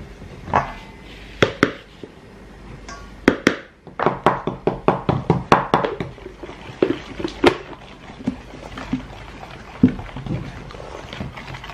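Wooden spoon knocking against the side of a stainless steel mixing bowl as egg is stirred into creamed butter and sugar. A few separate knocks early on give way to a quick run of knocks near the middle, then scattered single knocks.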